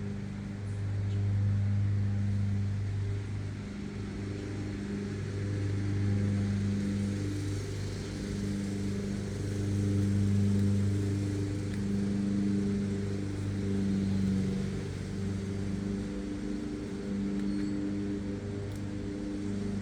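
Lawn mower engine running steadily, its level swelling and fading every few seconds.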